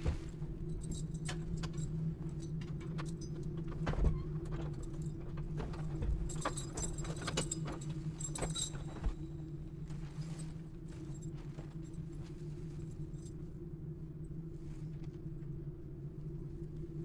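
Keys jangling and clicking against a door lock as a hand fumbles to unlock it, with a thud about four seconds in and the rattling busiest a few seconds later, over a steady low hum.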